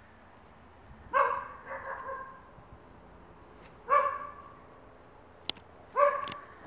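A dog barking off-camera: three single barks, about two to three seconds apart. There is also a sharp click between the second and third barks.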